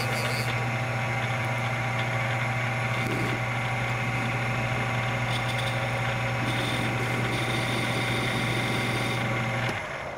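ShopTask lathe-mill combo's spindle running at steady speed: a low motor hum with a whine of higher tones above it. It cuts off near the end as the spindle is stopped.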